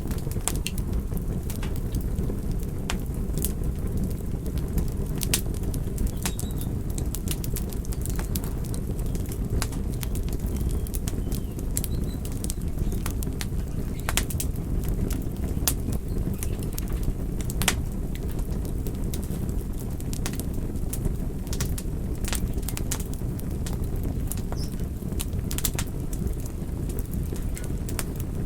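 Wood fire crackling in a fireplace: a steady low rumble from the burning logs, with frequent sharp pops and snaps, a few of them louder than the rest.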